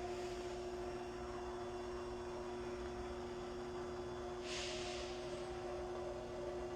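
Steady low electrical hum made of a few fixed tones, with one brief soft hiss about four and a half seconds in.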